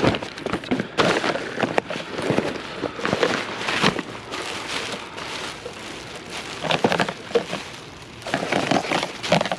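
Hands rummaging through a pile of discarded household items, with irregular rustling, crackling and clattering as things are shifted and pulled aside.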